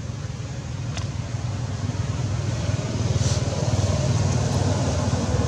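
Low engine rumble of a passing motor vehicle, growing steadily louder, with a couple of faint clicks.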